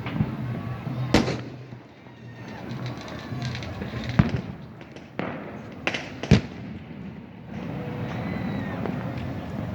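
New Year fireworks going off: five separate sharp bangs over a steady background din, the loudest about six seconds in.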